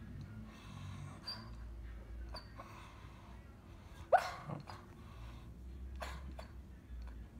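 A sleeping, dreaming dog breathing with soft snuffles about once a second, and one short, sharp snort about four seconds in.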